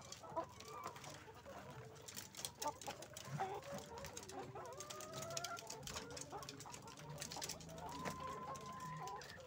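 Caged laying hens clucking, with two long drawn-out calls, one about halfway through and a longer one near the end, over scattered clicks and rattles.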